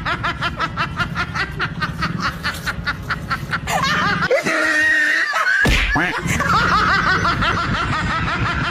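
Laughter: a fast, unbroken run of short laughs that changes briefly about four to five seconds in, then carries on.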